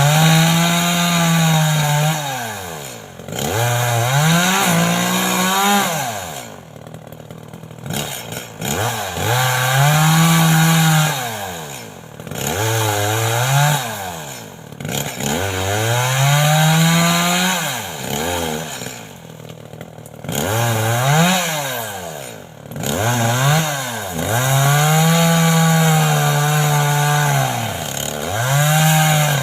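Chainsaw cutting wood for pruning, its engine revving up to full speed for a few seconds at a time and dropping back toward idle between cuts, about eight times over.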